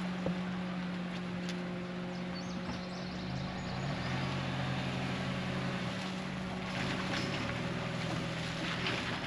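A vehicle engine running steadily at low speed while towing a trailer, its note shifting about three seconds in. Light clicking and rattling come in about seven seconds in.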